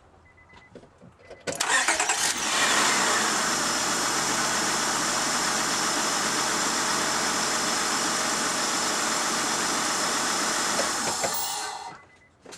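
Honda Odyssey's V6 engine cranked and started about a second and a half in, catching with a short falling whine, then idling steadily before it cuts off near the end. It runs with a very slight stumble, which the owner thinks may be something other than the coil packs he has been swapping to cure a misfire.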